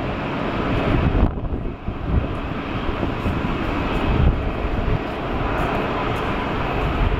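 Boeing 747-8F freighter's GEnx turbofan engines running as the jet taxis past: a steady jet rush over a deep rumble, which thins briefly about a second in.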